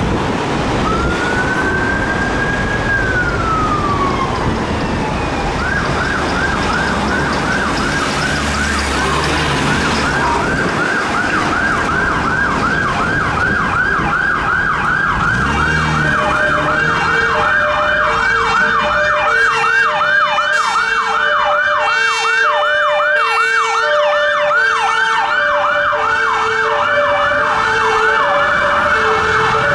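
Siren of a St John Ambulance CATS children's intensive care ambulance (Mercedes Sprinter) on an emergency response. One slow wail rises and falls, then a rapid yelp repeats. About halfway through, the two-tone air horns join in, alternating a low and a high note, with road traffic running underneath early on.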